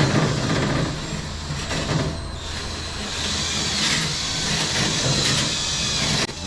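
Power drill running steadily, spinning a 400-grit abrasive ball that scuffs the surface of an aluminum wing rib to prepare it for priming. The sound cuts off sharply near the end.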